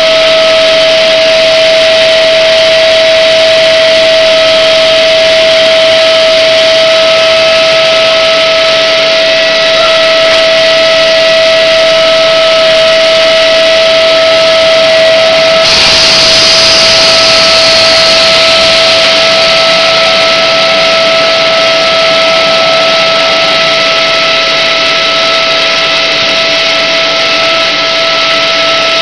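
Extrusion blow molding machine running: a loud, steady high whine over a noisy mechanical hum. About halfway through a burst of hiss starts suddenly and fades over a few seconds.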